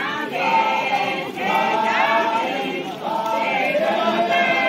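Group of voices singing a traditional Yimkhiung Naga folk chant together, in long held phrases with short breaks between them.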